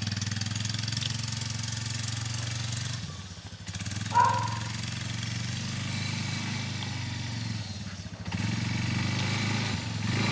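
Quad bike (ATV) engine running at low, steady speed, dipping briefly twice. A short high-pitched sound stands out about four seconds in.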